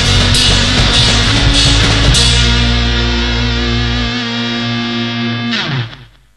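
Closing bars of a punk rock song: distorted electric guitar, bass and drums hit four accents, then let a final distorted chord ring out for about three seconds. The chord cuts off sharply near the end.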